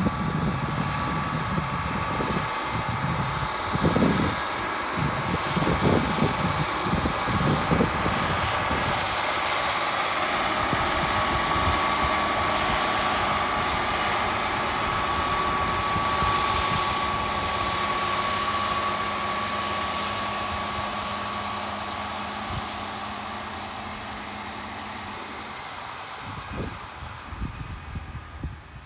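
New Holland T8 tractor's six-cylinder diesel engine working under load as it pulls a ripper bedder through the soil, with a steady whine over the engine; the sound fades over the last several seconds as the tractor moves away. Wind buffets the microphone in the first several seconds.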